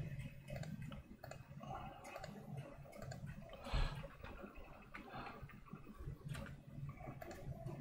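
Faint, scattered clicks of a computer mouse, one louder click a little before the middle, over a faint low hum.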